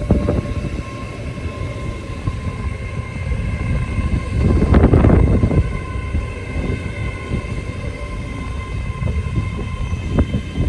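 Great Western Railway Class 800 express train arriving at the platform. It gives a steady low rumble with a constant whine and swells louder about halfway through.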